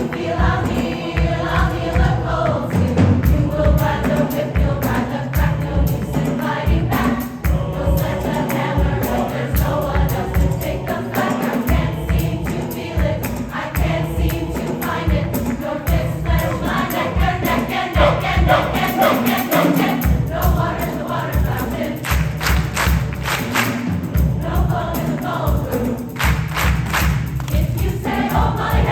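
Community choir singing in parts over a steady, rhythmic low beat.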